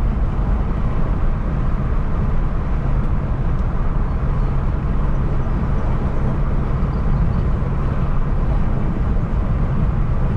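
Steady road and engine noise of a car being driven, heard from inside the cabin: an even low rumble with tyre hiss over it.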